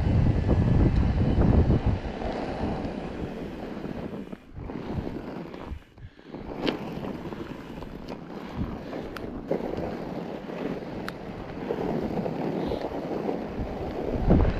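Wind rushing over the microphone as a mountain bike is ridden through snow, strongest for the first two seconds and then lower, with a few sharp clicks in the second half.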